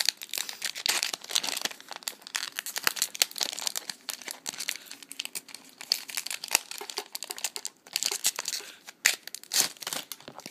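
Foil wrapper of a Pokémon booster pack crinkling and tearing open in the hands: a dense run of irregular crackles.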